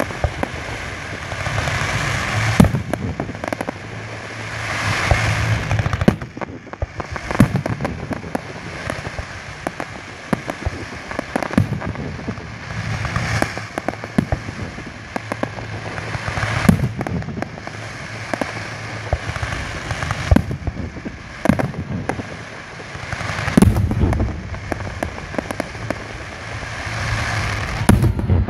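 Fireworks display: aerial shells bursting in many sharp bangs at irregular intervals, over a continuous rush of noise from the burning effects.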